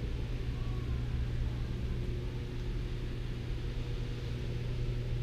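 Room tone: a steady low hum with a faint hiss, unchanging throughout, with no distinct event.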